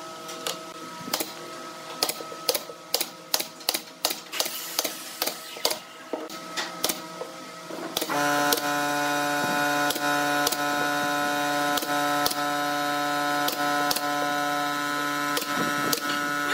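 Pneumatic nail gun firing repeated sharp shots into pine drawer-bottom boards. A steady hum joins about halfway through.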